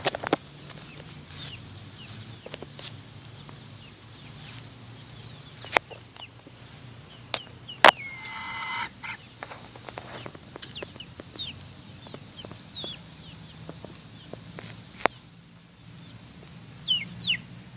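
Chickens clucking on and off, with one held call of about a second partway through, among a few sharp clicks.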